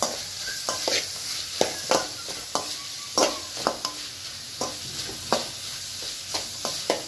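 Sliced onion, capsicum and carrot sizzling in melted butter in a metal kadai. A metal spatula stirs them, scraping and knocking against the pan in irregular strokes about twice a second over the steady hiss of the frying.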